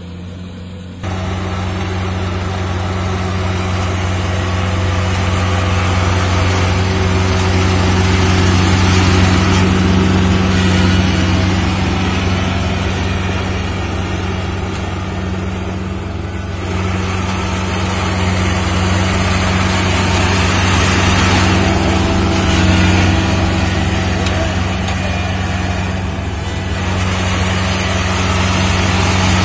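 Kubota Pro488 combine harvester running, its diesel engine a steady low hum under a broad mechanical clatter. The sound jumps louder about a second in, then swells and eases a little.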